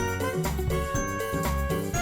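Upbeat background music with a bouncy bass line, chiming bell-like melody notes and a steady beat.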